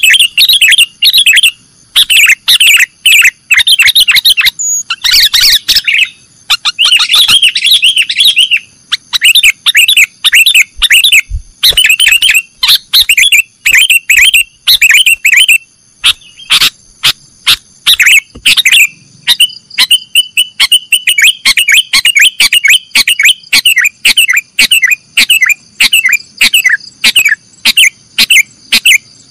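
Sooty-headed bulbul (kutilang) calling loudly: fast runs of sharp, repeated chirps and short bubbling phrases with brief gaps between them. About two-thirds of the way in, a quicker, more even chatter takes over.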